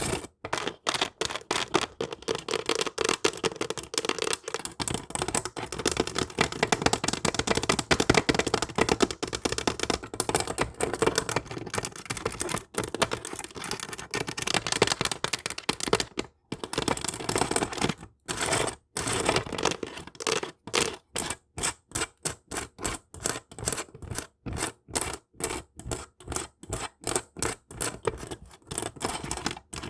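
Fingernails tapping and scratching rapidly on hard objects, a dense run of quick clicks and scrapes. The strokes fall into a steadier, more evenly spaced rhythm in the last third.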